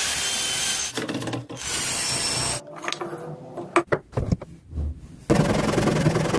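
A tool working wood: two long scraping strokes, then a run of sharp knocks, then steady rough scraping from a little after five seconds in.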